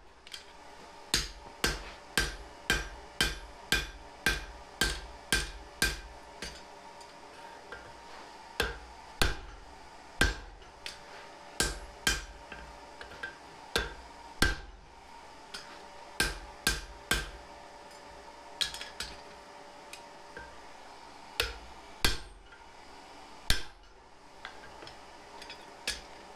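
Hand hammer striking hot leaf-spring steel on an anvil while drawing out a tang: runs of blows about two a second, broken by short pauses. A faint steady hum runs underneath.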